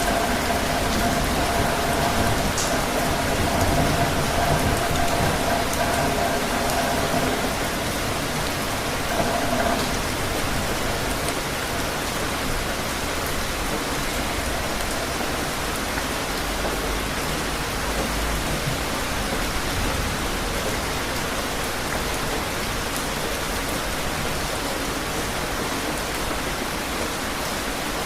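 Steady rain falling, an even hiss of drops on surfaces with no let-up.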